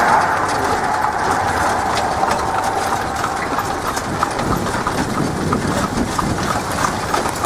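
A horse's hooves clip-clopping on a paved road as it pulls a buggy, over a steady rushing road noise that fades over the first few seconds.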